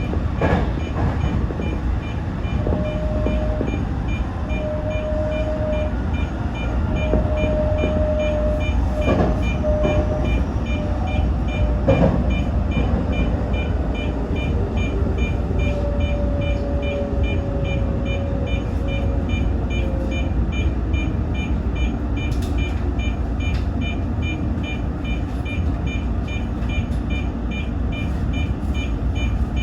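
Tōyō Rapid Railway 2000 series electric train running and braking into a station: a steady low rumble with a motor whine that comes and goes, then falls slowly in pitch. A faint high beep repeats evenly over it.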